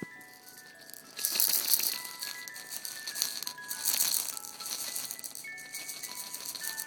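A baby's rattle shaken in quick, continuous bursts from about a second in, over a toy's tinkling melody of single chime-like notes.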